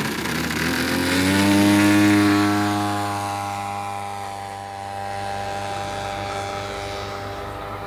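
Propeller engine of a large radio-controlled scale RV-4 model aircraft making a close flyby: it swells to its loudest about two seconds in, its pitch falling as it passes, then runs on at a steady pitch as it draws away.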